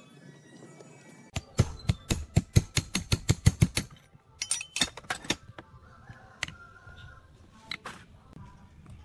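Hammer tapping a steel punch to drive the wrist pin out of a Stihl two-stroke chainsaw piston: a quick, even run of a dozen or so sharp metallic taps, about five a second, then a few scattered knocks and clicks.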